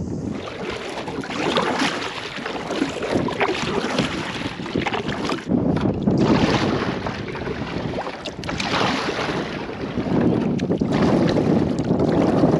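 Gusty wind buffeting the microphone on a kayak out on open water, a rushing noise that swells and eases.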